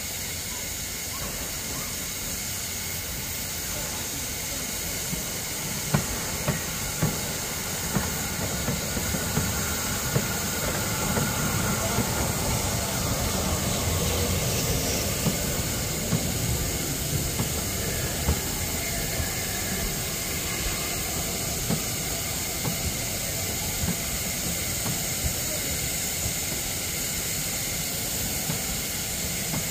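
Steam locomotive and its train of coaches passing at slow speed, with a steady hiss of steam throughout. From about six seconds in, the wheels knock and click over the rail joints as the coaches roll by.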